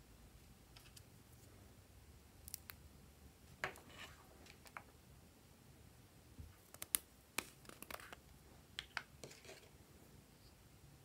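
Faint, scattered clicks and crinkly rustles of a small plastic container being handled, its lid and a thin seal strip worked by the fingers, with a cluster of quick clicks in the second half.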